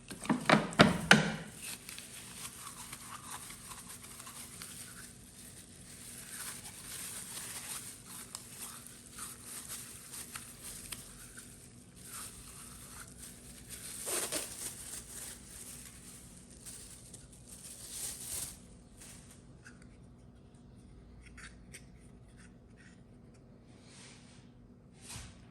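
Scraping and rubbing at a small object by hand, typical of cleaning rust and dirt off charger parts, with a few sharp knocks in the first second and light scattered clicks in the last several seconds.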